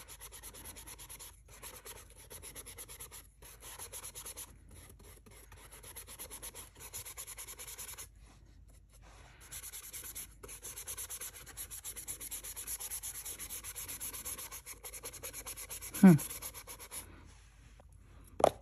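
A paintbrush scrubbing matte medium back and forth over crayon marks on journal paper: a soft, rhythmic rubbing that pauses briefly about eight seconds in and fades out near the end.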